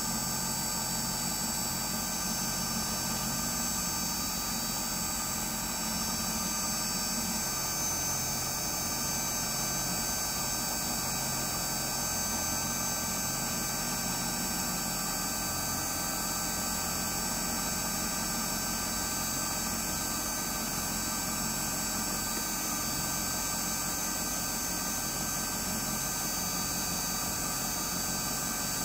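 Wood lathe motor running steadily, spinning a pen blank on its mandrel, with a constant hum and whine.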